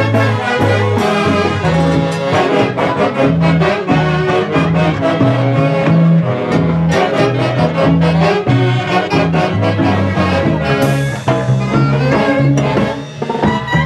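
A brass band with saxophones, trumpets and drums playing a lively Latin American dance tune, with a repeating bass line and a steady drum beat.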